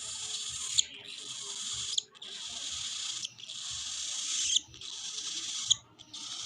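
Cockatiel chick's raspy, hissing food-begging calls during hand-feeding, in rasps of about a second each with short breaks, five or six in a row.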